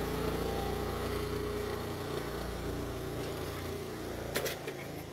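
A motor engine running with a steady pitch, slowly fading away, with a couple of sharp clicks near the end.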